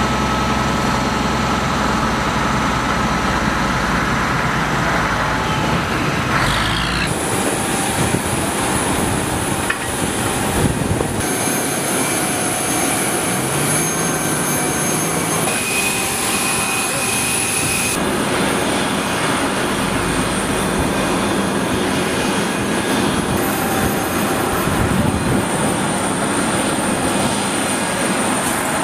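Fire truck engine running for the first several seconds, then flight-line noise after a cut: a steady hiss with a high whine from aircraft engines, which fades somewhat about two-thirds of the way through.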